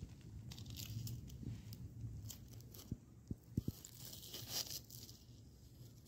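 Fresh snow crunching and crackling as it is pressed and scraped, with a few short low thumps about three seconds in.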